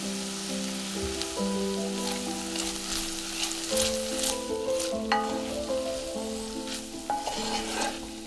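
Food frying and sizzling in a pan while it is stirred, with occasional clicks of the utensil against the pan. Soft background music with held notes plays under it.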